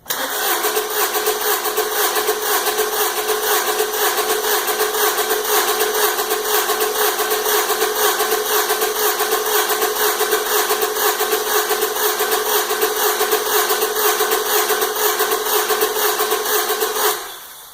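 2002 Honda Accord four-cylinder engine cranking over on its starter without firing, the fuel pump disabled, during an in-cylinder pressure test of its misfiring number 4 cylinder. A steady whirring crank that starts abruptly and cuts off about a second before the end.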